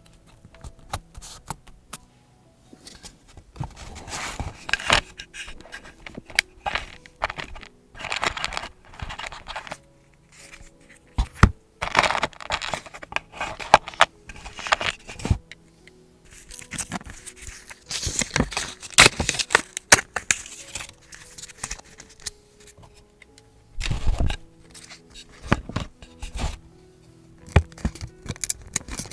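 Paper and journaling materials being handled close up: bursts of rustling and scraping about a second long, with sharp taps and clicks in between. Soft background music plays underneath.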